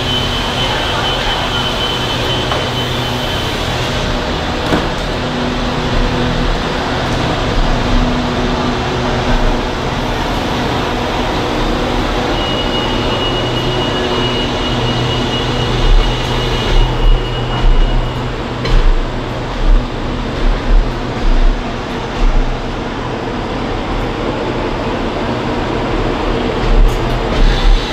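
CNR-built passenger coaches rolling slowly past along the station track, with a steady mechanical hum under the rumble of the wheels. About halfway through, a run of low thumps begins as the wheels go over the track.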